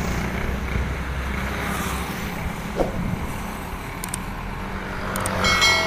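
Road traffic: a truck and motorcycles pass and pull away along the road, with a steady rumble that eases after about two seconds. A few sharp clicks follow, and a ringing chime starts near the end.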